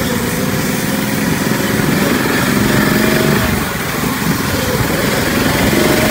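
Small engine of an off-road buggy running steadily while driving along a dirt trail, dipping briefly in loudness a little after the middle.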